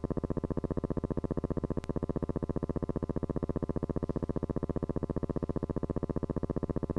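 Steady, rapidly and evenly pulsing buzz with a low pitched hum, unchanging throughout, with a single sharp click about two seconds in.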